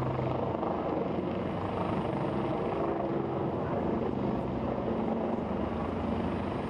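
Eurocopter EC175 helicopter flying low just above the ground: a steady rapid chop from the main rotor over the running turboshaft engines, with a thin high turbine whine.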